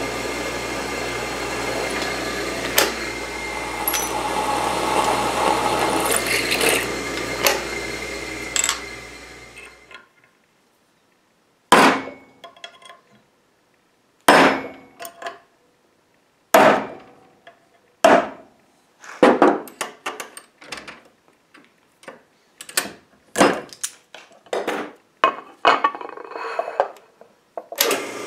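A shop power tool runs steadily with a low hum and stops abruptly about ten seconds in. After that a hammer strikes a small metal part: single ringing blows about two seconds apart, then quicker taps near the end.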